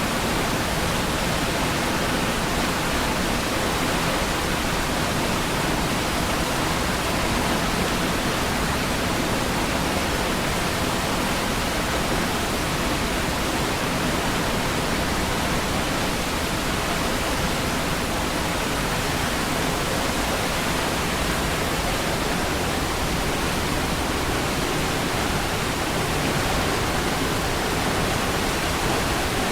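Niagara Falls: water falling in a steady, unbroken rush that does not change.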